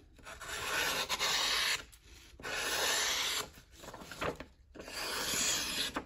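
The freshly sharpened blade of a Victorinox Huntsman Swiss Army knife slicing through a hand-held sheet of printer paper: three long, even cuts with short pauses between, as the thinned and stropped edge slices the paper cleanly in a sharpness test.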